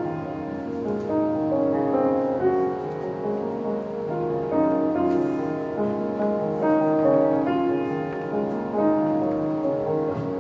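Slow instrumental music with held, overlapping notes and no voice.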